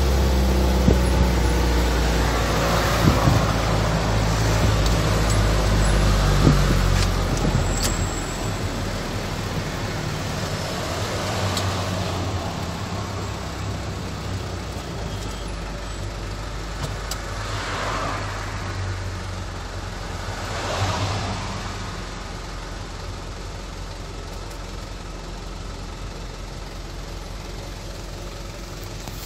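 Car engine and road noise heard from inside a moving car, with a low engine hum that eases off after about seven seconds to a steadier, quieter running sound as the car joins slow traffic. Two vehicles swish past near the two-thirds mark.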